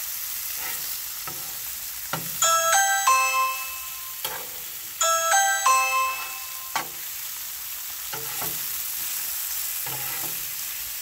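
Chicken thighs and green beans sizzling steadily on a flat-top griddle, with a few short scrapes and taps of a metal spatula as the thighs are flipped. Twice, a short chiming melody rings out over the sizzle; these two chimes are the loudest sounds.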